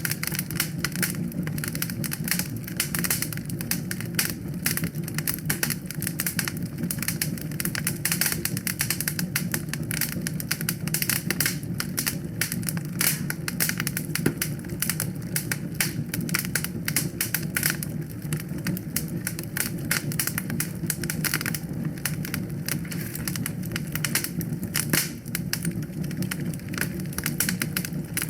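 Wood fire burning in a fireplace, crackling with rapid, dense pops and snaps over a steady low rumble.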